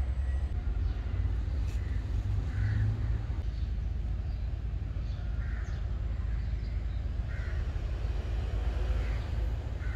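A crow cawing several times, one short call about every two seconds, over a steady low rumble.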